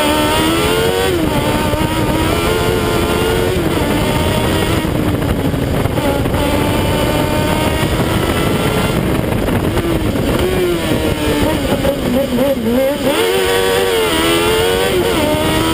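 Fiat 500 race car's Kawasaki ZX-12R inline-four motorcycle engine at racing speed, its pitch rising and dropping repeatedly as it is revved and backed off, over steady road and wind noise.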